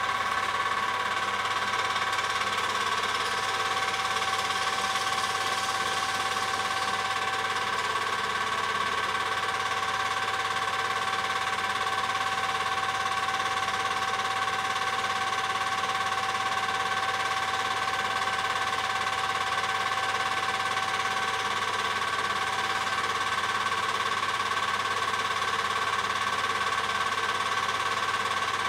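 Film projector running: a steady mechanical whir with a constant whine and low hum over it.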